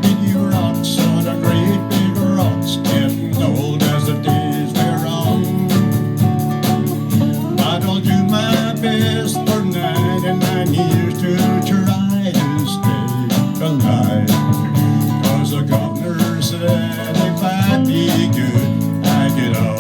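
Live country band playing an instrumental break between verses, led by guitar over a steady beat, picked up on a phone's microphone.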